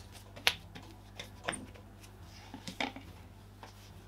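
A hand patting and pressing a piece of baguette dough on a stone countertop to spread the gas through it before shaping. There is one sharp pat about half a second in, then softer pats and taps around one and a half and near three seconds.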